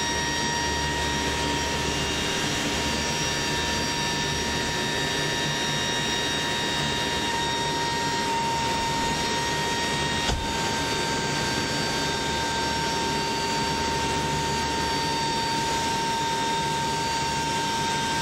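Steady drone of a US Air Force hurricane hunter aircraft's engines in flight, an even noise with several constant whining tones. A single brief click about ten seconds in.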